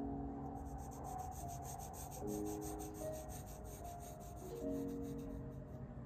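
Pencil lead scratching on paper in a quick run of short, even strokes while a line is drawn, stopping near the end. Soft background music with slow sustained chords plays underneath.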